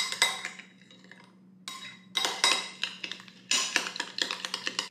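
Spoon stirring a thick mayonnaise-based sauce in a glass bowl, with quick runs of clinks and scrapes against the glass and a short pause early on.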